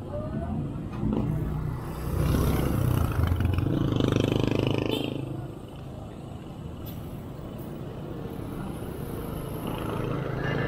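A motorcycle riding through street traffic: its engine running steadily with wind and traffic noise around it. The engine noise grows louder for a few seconds about two seconds in, then settles back.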